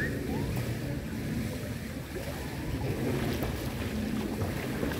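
Swimming-pool water lapping and sloshing at the pool edge as a swimmer moves through it, with wind buffeting the microphone as a steady low rumble.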